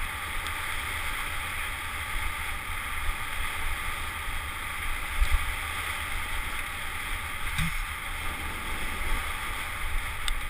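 Wind buffeting the microphone of a helmet-mounted camera, with the steady rolling crunch and rattle of tyres on a fast dirt-and-gravel trail descent, and a few small knocks from the bumps.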